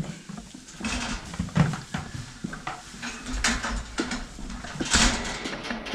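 Irregular knocks and clatter with several brief rustling bursts, the sharpest about a second in and again near five seconds.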